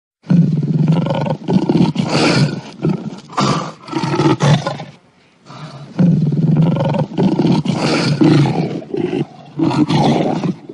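Lion roaring loudly in two long, rough bouts, with a short pause about halfway through.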